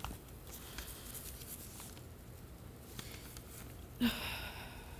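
Quiet room tone with faint rustling and light clicks of papers being handled at a desk. About four seconds in, a brief vocal sound, like a sigh.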